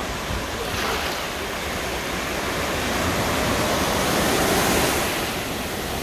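Ocean surf: small waves breaking and washing through the shallows as a steady rush, swelling louder about three to five seconds in as a wave breaks into foam close by.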